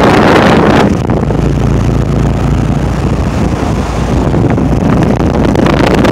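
Rheem Prestige series central air conditioner condenser running, with a steady low hum from its new Copeland scroll compressor and fan, which is running really quiet. The fan's air blast rushes over the microphone, heaviest in the first second.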